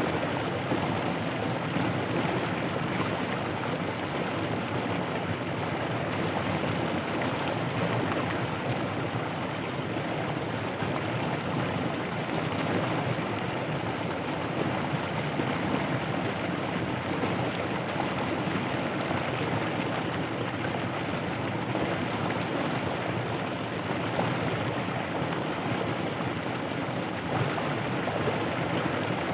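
Steady rush of fast-flowing floodwater, an unbroken wash of running water.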